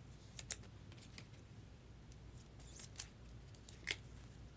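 Faint, crisp clicks and snips of trading cards and foil packs being handled. A few sharper ones come about half a second in, around three seconds and near four seconds, over a low room hum.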